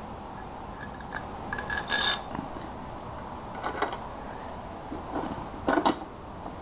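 Metal mounting hardware for a motorcycle saddlebag, a bracket and spacers, clinking and clicking as it is handled and fitted against the bike, in three short clusters: about two seconds in, near four seconds, and a louder clatter near the end. A steady hum sits underneath.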